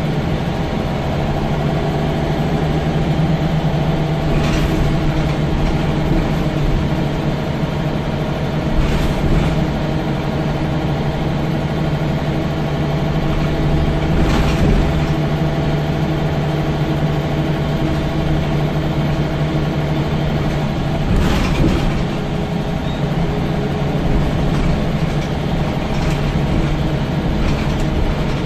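Scania L94UB single-deck bus heard from inside the rear of the saloon while driving: a steady engine and drivetrain drone with a low hum. Four sharp knocks cut through it at intervals.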